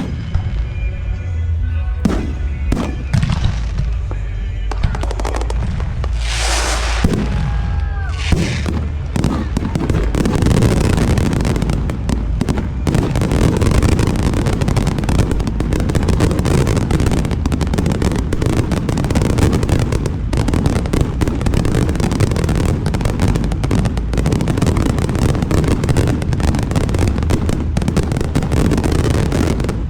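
Fireworks display: a few separate shell bursts, then from about nine seconds in a dense, unbroken barrage of crackling bursts and booms.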